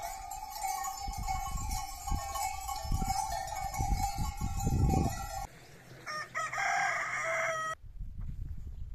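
Farmyard animal calls, a rooster crowing among them, with wind buffeting the microphone through the first half. The sound cuts off suddenly shortly before the end, leaving only faint wind noise.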